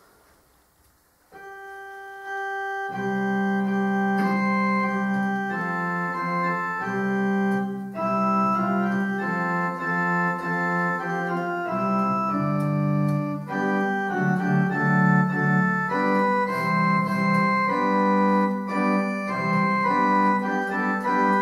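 Electronic keyboard playing a hymn tune in an organ voice. A single held note comes in about a second in, and from about three seconds on there are full sustained chords that change every second or two: the organ introduction to a congregational hymn.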